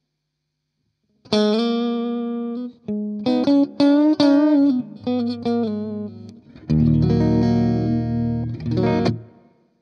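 Electric guitar played through Amplitube's amp modelling with the room reverb's decay turned up for a longer room tail. A ringing chord comes in after about a second of silence, then a run of single notes, then a full chord that rings on and fades away near the end.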